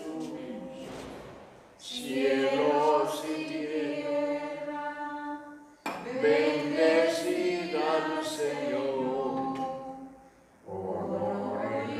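A group of voices singing a hymn in long held phrases, pausing briefly between phrases about every four seconds.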